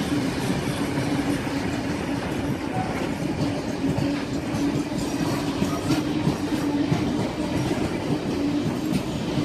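A train running on the rails, with a steady low hum under continuous rumbling noise.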